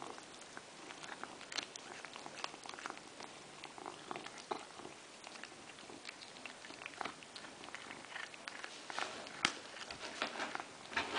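Maine coon cat chewing a mouse: irregular clicks and crunches of its teeth working through the prey, with one sharper click late on.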